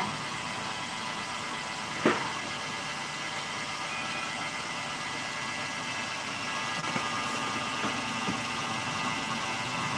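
Electric stand mixer running steadily, its motor humming as the wire whisk beats egg whites into meringue. There is one sharp knock about two seconds in.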